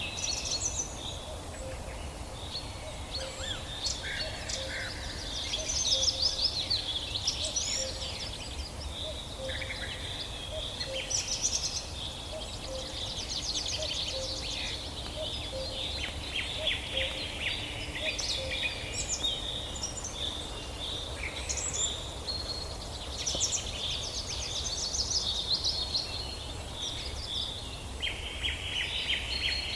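Several songbirds singing and chirping at once in a dense chorus of overlapping short chirps, trills and rapid note series, over a steady low rumble.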